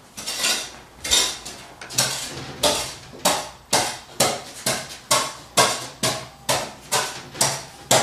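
A steady run of sharp knocks, each with a short ringing tail, about two a second, coming a little quicker after the first few seconds.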